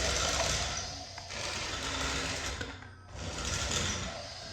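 Remote-control Thomas the Tank Engine toy's small electric motor and gears whirring as it drives, cutting out briefly about a second in and again near three seconds in.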